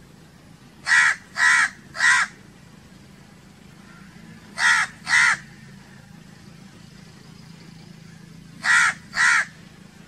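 House crows cawing: seven short, harsh caws in three groups, three in quick succession about a second in, two more around the middle, and two near the end.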